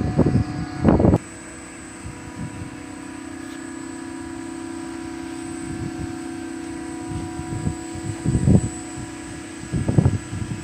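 Steady hum of HVAC plant machinery running, holding several constant tones. Loud low rumbles break in about a second in, again past the middle and near the end.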